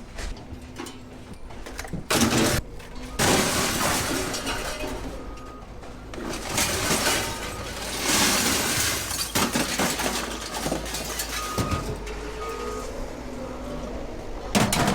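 Scrap metal clattering and crashing as pieces are thrown onto a scrap pile. There are a few sharp hits in the first couple of seconds, then a long run of jumbled clanging.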